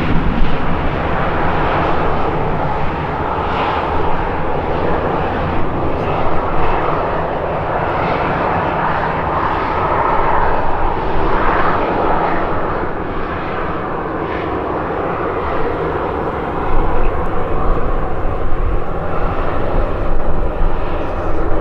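Airliner engines running in a steady roar that swells briefly about halfway through. Gusty wind buffets the microphone with a low rumble, strongest near the end.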